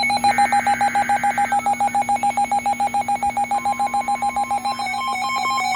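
Weather radio alert sounding at the start of a severe thunderstorm warning: a fast electronic beeping, about ten beeps a second, over the tail of a buzzy data burst. A steady higher tone joins a little past halfway, and near the end the beeps change to alternating two notes.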